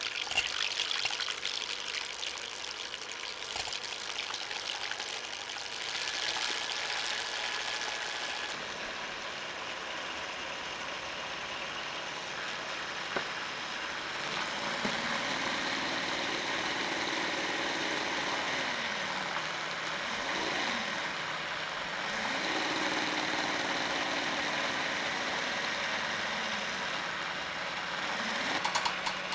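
Electric hand mixer running, its beaters whipping egg whites and sugar into meringue in a glass bowl. From about halfway, its low motor hum rises and falls in pitch several times.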